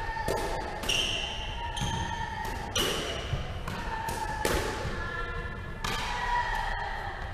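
Squash rally: sharp smacks of the racket on the ball and the ball off the court walls and wooden floor, about eight at irregular intervals, with rubber-soled shoes squeaking on the floorboards between them.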